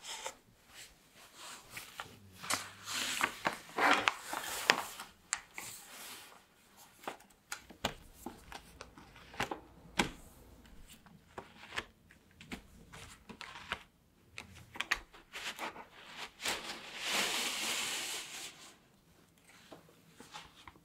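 Baking parchment rustling and crinkling as chocolate cake rounds are moved from a sheet pan onto a wire cooling rack, with light clicks and taps of the pan and rack. A cluster of louder rustles comes a few seconds in, and a longer rustle of paper comes near the end.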